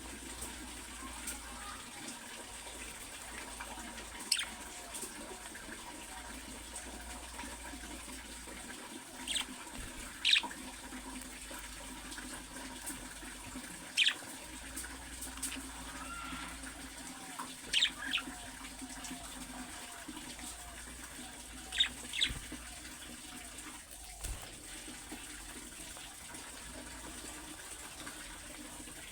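Budgerigars chattering and warbling steadily, with about eight sharp, loud chirp calls standing out, two of them in quick pairs.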